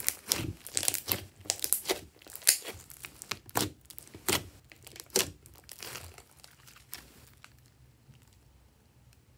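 Thick glossy slime squeezed, folded and pressed by hands, giving sticky, irregular crackling pops and squelches as air pockets burst. The pops thin out after about seven seconds, leaving only faint sounds.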